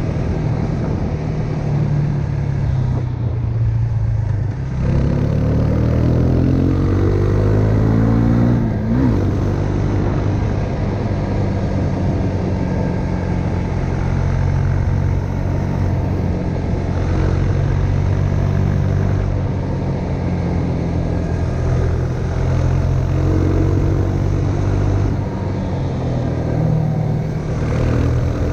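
Husqvarna Svartpilen 401's single-cylinder engine running under way. It eases off for a moment, then climbs in revs from about five seconds in before settling to a steady cruise, with a couple of smaller pulls near the end.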